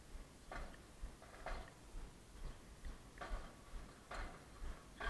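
Faint, regular ticks about once a second, in time with a marching band stepping along without playing.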